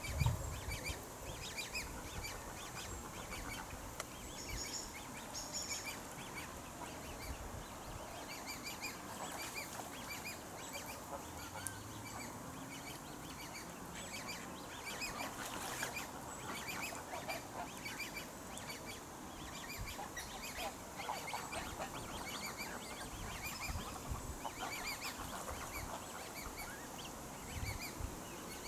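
Waterfowl calling, many short calls repeated again and again.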